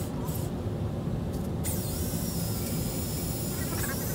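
Cordless drill spinning a greased acme threaded rod (3D printer Z lead screw): the motor whine picks up about a second and a half in and runs steadily, over a constant low rumble.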